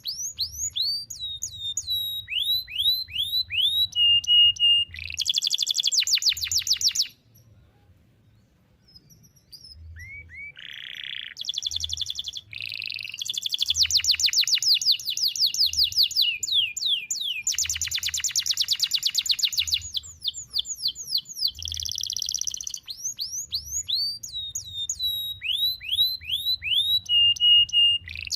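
Domestic canary singing a long song of fast trills, rattling rolls and repeated downward-sweeping whistles. It breaks off for about three seconds a quarter of the way in, then resumes with short notes before the full song returns.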